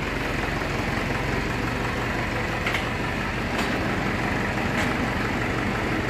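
Diesel tractor engine idling steadily, with a few faint clicks over it.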